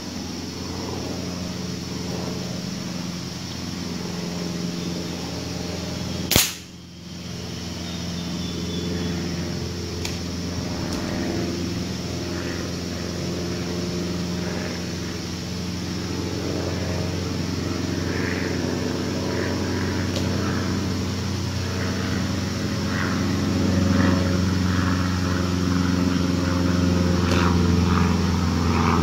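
A single sharp gunshot about six seconds in, over a steady low drone like a distant motor. Later come scattered rustling steps through dry leaves.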